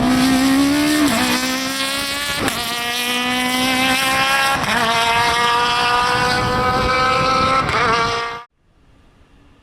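Citroën AX Kit Car rally car's four-cylinder engine at full throttle, its pitch climbing through the gears with brief breaks at several upshifts. The loud engine sound cuts off abruptly near the end, leaving a faint distant engine.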